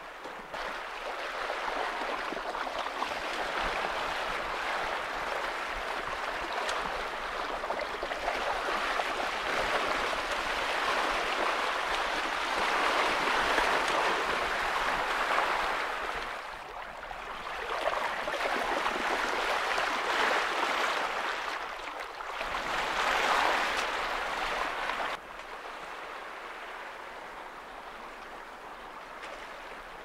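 Water rushing and splashing along the hull of a sailing yacht under way, in surges that swell and ease. About 25 seconds in it drops suddenly to a quieter, steady rush.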